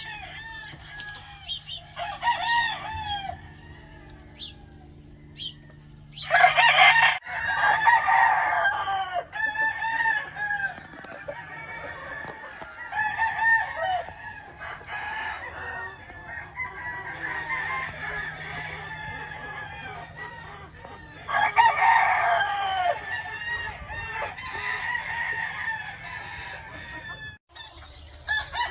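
Gamefowl roosters crowing and clucking, several birds calling over one another, with louder crows about six seconds in and again about twenty-one seconds in.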